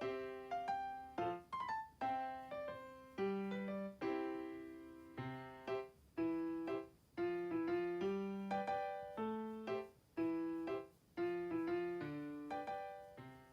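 Background music: a gentle solo piano melody, notes and chords struck and left to ring out.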